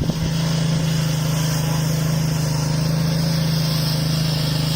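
Small gasoline engine of a walk-behind concrete saw running at a steady speed, cutting crack-control joints in a freshly finished concrete slab.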